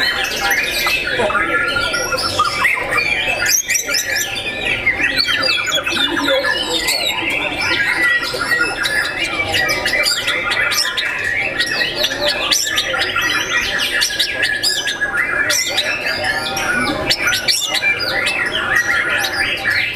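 Many caged songbirds singing at once, including a white-rumped shama (murai batu): a dense, unbroken mix of rapid whistles, trills and pitch glides overlapping one another.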